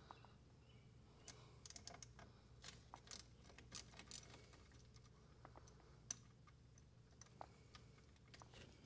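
Faint, irregular light metallic clicks of a 10 mm wrench working on a battery terminal bolt, a few at a time with pauses between, the sharpest about six seconds in. A low steady hum runs underneath.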